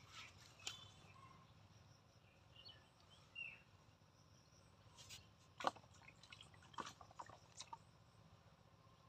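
Near silence: faint pondside ambience with a few short, scattered clicks and ticks, the sharpest just past the middle, and a brief bird chirp about three seconds in.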